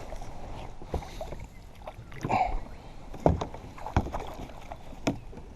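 A few separate knocks and clunks against a fishing kayak over faint water noise, with a short vocal sound about halfway through, while a hooked fish is being played.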